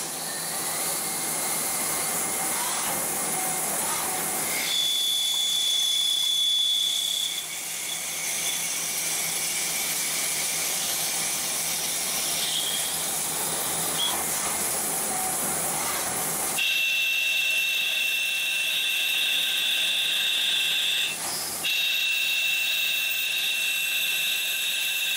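Automated CNC lathe machining a brass bar under flood coolant: a steady hiss of coolant spray and cutting. A high steady whine sounds briefly about a fifth of the way in, then returns more strongly about two-thirds in, with one short break.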